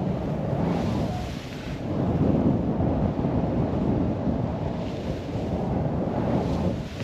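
Wind buffeting the microphone at speed, a low rumbling noise that swells and eases every second or two, with the rush of riding through snow.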